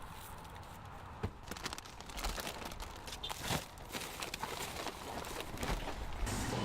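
Irregular crinkling and rustling with scattered sharp clicks and knocks, busier from about a second in.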